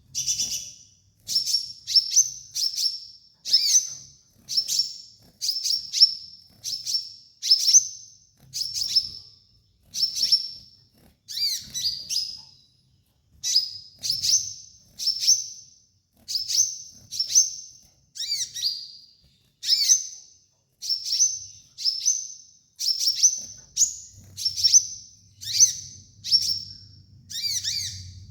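Sunbird (kolibri ninja) singing: short, high, thin chirping phrases with quick downward flicks, repeated about once a second.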